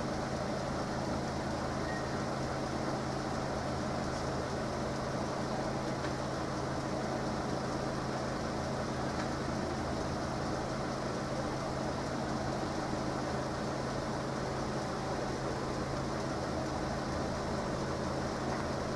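Vehicle engines idling steadily: a constant low hum over a soft wash of traffic noise.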